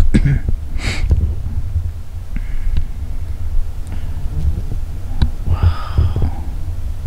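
Low, steady rumble with irregular soft thumps on a handheld camera's microphone, with two brief soft hissing sounds, about a second in and again near six seconds.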